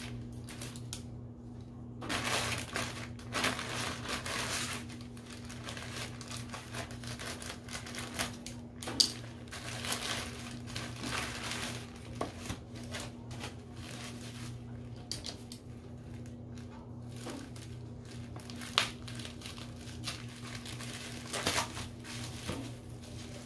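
Packaging being handled and crinkled: irregular rustling and crinkling with a few sharp clicks or taps, over a steady low hum.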